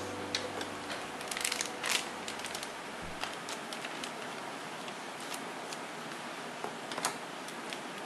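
Scattered light clicks and taps of jars, lids and plastic packets being handled, over a steady low hiss, with a quick cluster of clicks between one and two seconds in.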